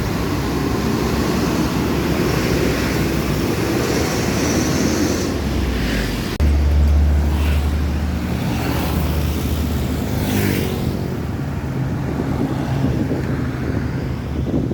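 Road traffic: the steady low rumble of passing motor vehicles. A louder, deeper engine rumble starts abruptly about six seconds in.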